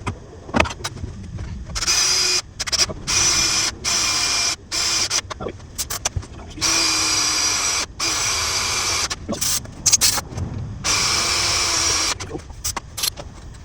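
Handheld power drill drilling holes for a DRO scale mount, run in about six short bursts of a steady motor whine, each a second or so long, with brief stops between.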